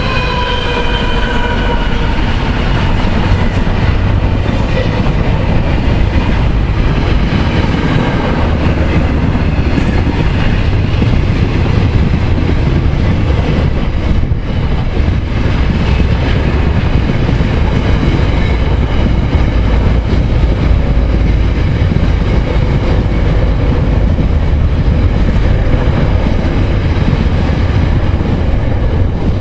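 Container wagons of a long intermodal freight train rolling past close by: a steady, loud rumble of wheels on rail. A high squeal from the wheels, falling slightly in pitch, dies away in the first two seconds.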